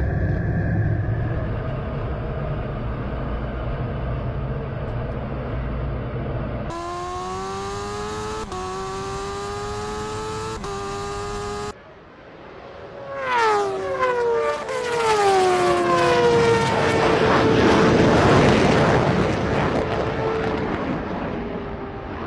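Steady low jet-engine rumble heard from inside a fighter jet's cockpit. Then an engine accelerating hard, its pitch climbing and dropping back at two gear changes. After a cut, a motorcycle, a Formula 1 car and other cars race past one after another, each engine note falling in pitch as it goes by, leaving a steady whine that fades.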